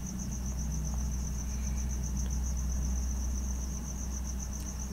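A cricket chirping in a rapid, even, high-pitched trill over a steady low hum.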